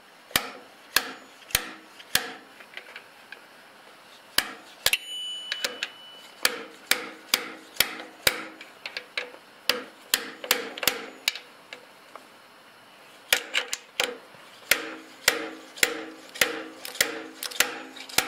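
Hammer striking a steel drift rod to drive a steering-head bearing race out of the frame neck. Sharp metallic taps come in runs of a few, about two a second, with short pauses between, each with a brief ring.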